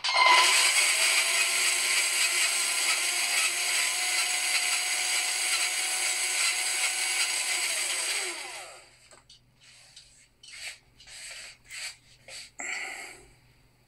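Electric drive motor and gearbox of a Tamiya Mammoth Dump Truck RC model running under radio control: a loud, steady whir that starts at once, then falls in pitch and winds down after about eight seconds. Several short, quieter bursts follow.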